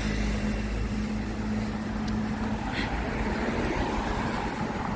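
Road traffic: a steady low rumble of vehicles, with an engine hum that fades out about halfway through.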